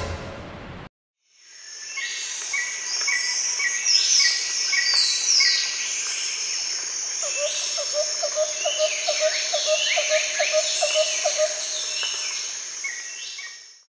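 Chorus of birds chirping and whistling with insects, a jungle-like ambience that fades in about a second in and cuts off suddenly at the end. Through the middle one call repeats a quick low note about four times a second.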